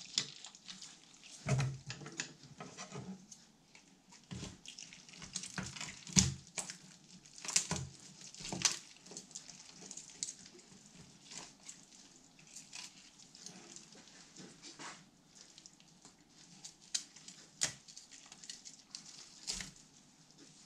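Irregular knocks, clicks and handling noises of a corvina carcass being cut apart on a wooden cutting board with a filleting knife and kitchen scissors.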